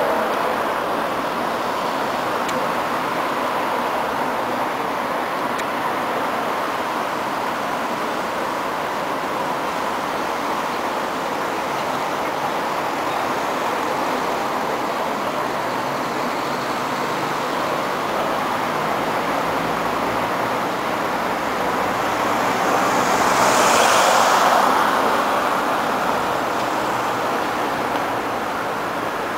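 City street traffic noise: a steady hum of passing cars on a wide avenue. About three quarters of the way in, a car passes close, getting louder for a couple of seconds and then fading.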